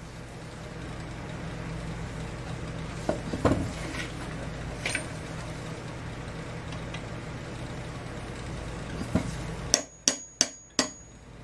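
A hammer tapping a punch set into the centre of a spark plug held in a steel vise, driving the centre electrode and porcelain insulator down out of the plug shell. A few faint clicks come first, then near the end a quick run of about five sharp metallic taps with a ringing tone. A steady low hum underneath stops as the taps begin.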